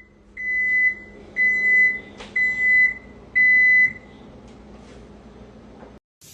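Electronic beeping: four even, high-pitched beeps about half a second long and a second apart, over a steady low hum, with a sharp click about two seconds in.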